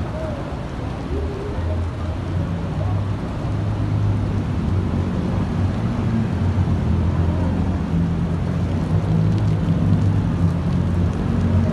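Heavy rain pouring down onto a flooded street, a dense steady hiss, with a continuous low rumble underneath that grows a little stronger partway through.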